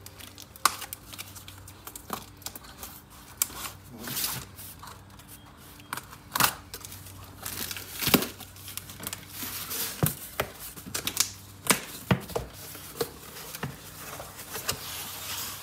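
Packing tape on a cardboard shipping box being slit with a plastic tool and the box flaps pulled open: tape tearing and cardboard scraping and rustling, with irregular sharp clicks and knocks.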